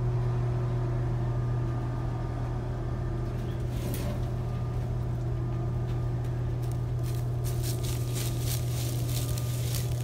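Pickup truck engine idling with a steady low hum. From about seven seconds in, a run of light crackling clicks joins it: footsteps and the wire cage trap on dry leaves.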